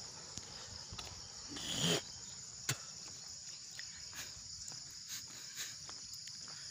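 Steady high-pitched insect chorus. About two seconds in, a short swell of rushing noise rises and cuts off, followed by a single sharp tap.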